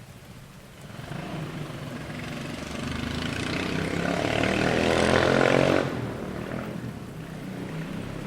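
Muscle car engine revving: the pitch and loudness climb steadily over several seconds to a peak about six seconds in, then drop off suddenly back to a lower, steady idle.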